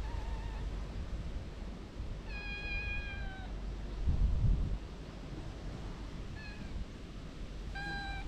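Tabby-and-white kitten meowing four times: a short meow at the start, a long, slightly falling meow about two seconds in, and two short meows near the end. A brief low rumble about four seconds in.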